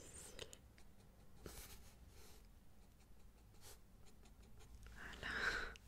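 Pencil sketching on paper close to the microphone: light, scratchy strokes, with a short, louder rustle near the end.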